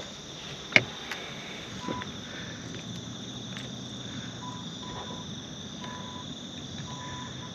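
Night insects chirring in a steady, high-pitched chorus, with a single sharp click a little under a second in and a faint tone coming and going.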